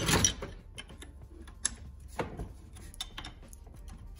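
Steel wrench working the brake-line flare nuts on an ABS block clamped in a steel bench vise: scattered sharp metal clicks and scrapes, the loudest a clatter right at the start.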